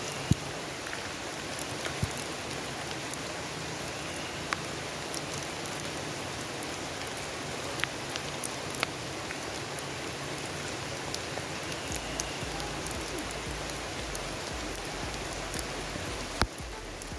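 Steady rain falling, an even hiss with scattered sharp taps.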